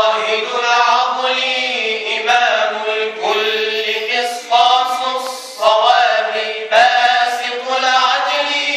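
Male vocal group singing tawashih, Islamic devotional chant, unaccompanied. Melodic lines bend and restart in phrases of about a second over a steady low held note.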